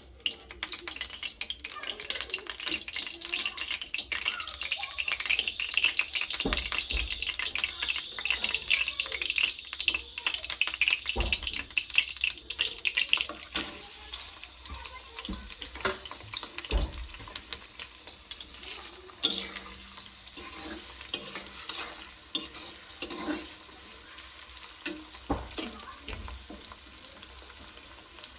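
Food sizzling in hot oil in a pan while being stirred. Dense crackling for roughly the first half eases off to a quieter sizzle, with scattered sharp clicks and knocks of a utensil against the pan.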